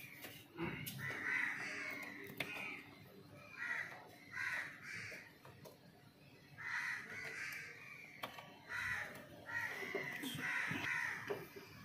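Crows cawing repeatedly, a dozen or so harsh calls at irregular intervals. A few sharp clicks come from a plastic multi-pin wiring coupler being pushed and clipped into a car's fuse box.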